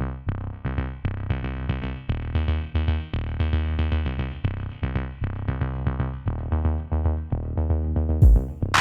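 Electronic background music: a synthesizer playing quick repeated notes over a steady bass, with a loud drum hit coming in near the end.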